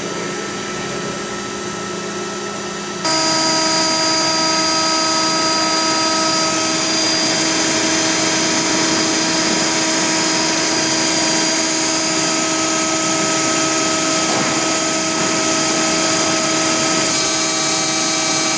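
Hydraulic power unit of a press running under load: a steady whine with several tones over a loud hiss, which steps up in loudness about three seconds in. Pressure in the system is building.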